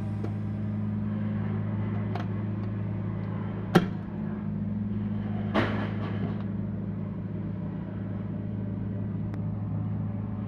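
A steady low electrical hum, with a sharp click or knock just under four seconds in and another a couple of seconds later.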